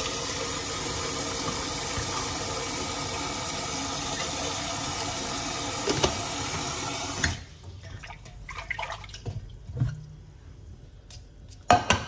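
Kitchen tap running hard into a stainless steel pot in the sink, filling it with water. The tap is shut off abruptly about seven seconds in, and then come quieter splashes and a few sharp knocks, the loudest near the end.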